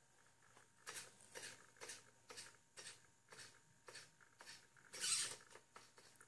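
Faint, short whirring steps from a hobby robot's head servo as it pans through a scan, about two a second. A louder, longer hissing move comes about five seconds in.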